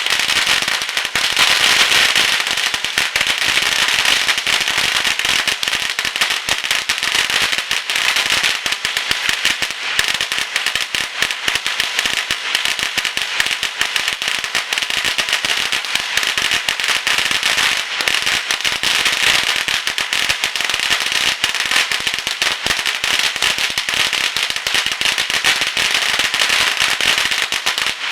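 A long string of firecrackers, a 7,000-piece roll, going off as a continuous, dense rattle of rapid bangs that breaks out at the start and never lets up.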